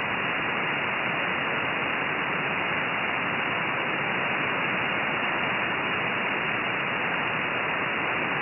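Steady hiss of shortwave static from an RTL-SDR V3 dongle receiver tuned to 2899 kHz, Gander's aeronautical frequency, with no one transmitting on the channel.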